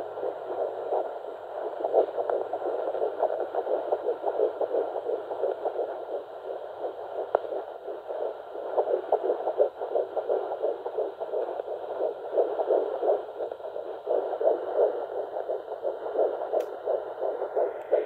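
Fetal heartbeat through the speaker of a Huntleigh Dopplex FD2 handheld Doppler: a fast, rhythmic pulsing, quicker than the mother's own heartbeat.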